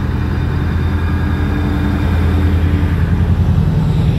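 Two coupled Taiwan Railway R200-class diesel-electric locomotives passing close by at low speed, their diesel engines running with a deep, steady drone that grows a little louder. A steady higher tone in the sound stops about three seconds in.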